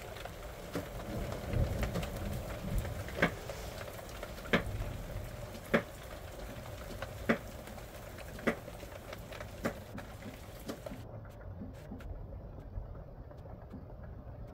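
A slow, even series of sharp knocks or taps, about one every second and a quarter, over a low steady background noise.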